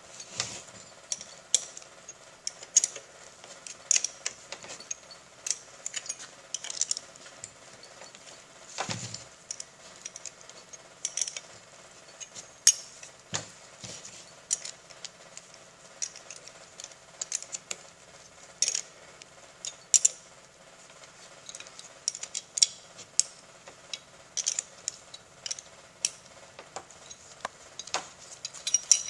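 Irregular light metallic clicks and clinks, a few every second, as the stainless steel pump motor assembly and its fasteners are handled and tightened by hand.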